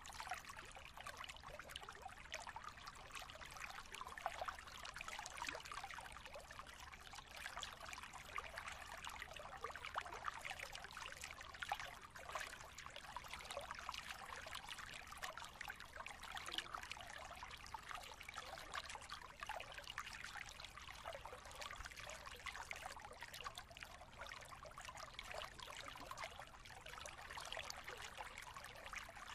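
Steady trickling of running water, like a flowing stream.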